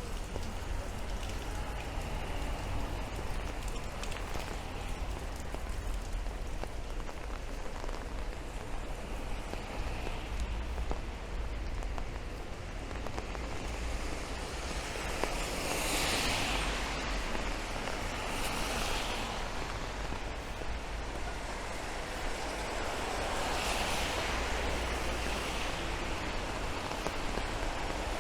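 Steady rain falling in a city street, with a low, even rumble underneath. Three louder swells of hiss come in the second half.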